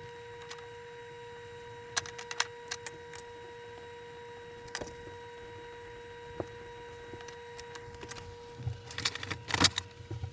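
Scattered knocks and clicks from hands working on a built-in dishwasher to pull it out, more of them in a cluster near the end, over a steady faint high hum.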